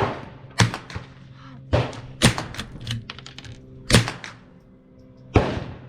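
Gunshots from .22 LR rifles on a shooting range: about six sharp, irregularly spaced reports, two of them close together a little past the second mark, another near four seconds and one near the end.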